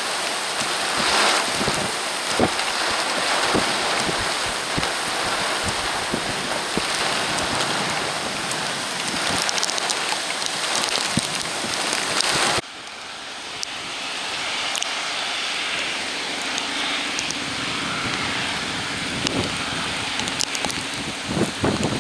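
Heavy rain from a summer cold front: a steady hiss of downpour with many sharp ticks of drops striking close by. About halfway through the sound drops abruptly to a somewhat softer rain.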